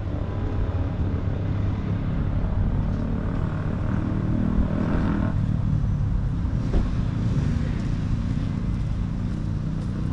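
Street ambience dominated by road traffic, a steady low rumble, with a vehicle passing about four to five seconds in.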